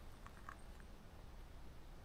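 Quiet outdoor background with a faint low rumble. About half a second in come a couple of faint soft rustles of nylon tent fabric being folded.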